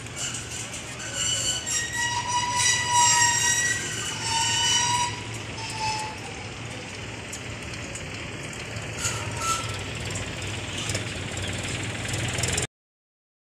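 Metal squealing and creaking from a steel solar-panel frame on a wheeled trailer as it is moved: several long high squeals in the first half and a shorter one about nine seconds in. The sound cuts off suddenly near the end.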